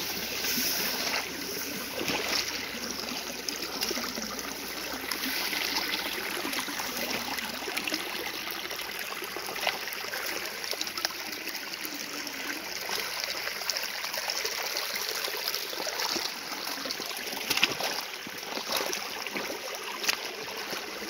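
River water flowing and sloshing around a person wading through it, with a few sharper splashes from steps.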